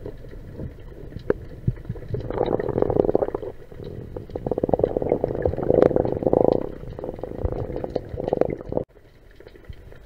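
Underwater bubbling and gurgling water noise heard through a diving camera's housing, coming in bursts over a low rumble, as the diver moves up through the water; it drops off suddenly near the end.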